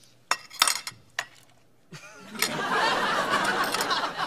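A few light clinks of cutlery against china, then, about two and a half seconds in, a studio audience breaks into loud laughter that carries on.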